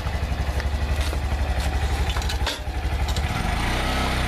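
Honda Grom's small single-cylinder four-stroke engine running at a steady, pulsing idle, its note shifting a little just over three seconds in, with a few light knocks as the bike is worked onto the loading ramp.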